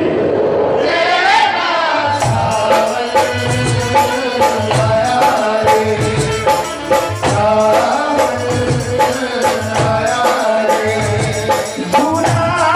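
Live Indian devotional song accompaniment: a held sung note fades in the first second or two, then a steady hand-drum beat comes in about two seconds in, with jingling percussion and a melody over it.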